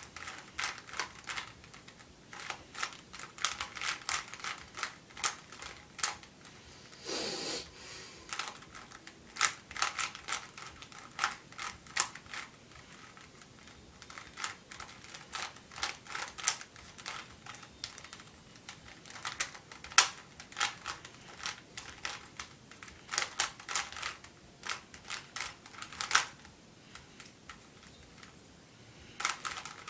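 A Rubik's Cube's plastic layers being turned quickly by hand during a solve: bursts of rapid clicks and clacks broken by short pauses. A brief rustle comes about seven seconds in.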